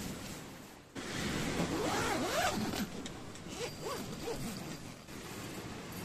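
A zipper being pulled in several strokes: one longer pull rising and falling in pitch a little after a second in, then a few shorter pulls.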